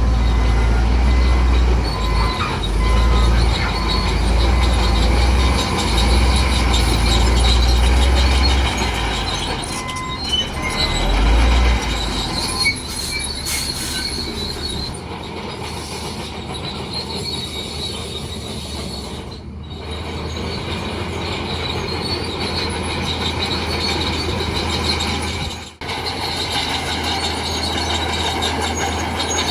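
Bulldozer working, its diesel engine running with a deep rumble and its steel crawler tracks giving a high metallic squeal. The engine rumble eases off about twelve seconds in while the squeal carries on.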